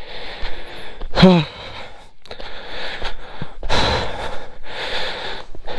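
A man panting hard after a steep uphill climb on foot: loud, heavy breaths about one a second, with a short voiced groan about a second in.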